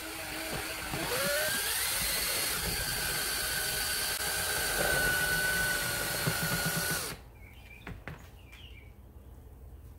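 Drill spinning a paint mixer paddle in a bucket of liquid humic acid solution, a steady motor whine that rises slightly about a second in. The drill stops about seven seconds in, followed by a few light knocks as the paddle is lifted out.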